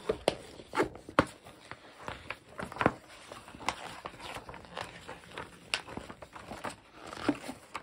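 Pages of a glossy paper board-game rulebook being leafed through and handled: irregular rustles and sharp paper snaps.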